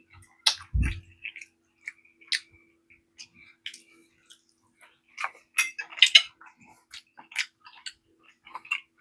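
Scattered small mouth sounds and light clicks close to the microphone, with a cluster of short noisy bursts a little past halfway and a low thump about a second in.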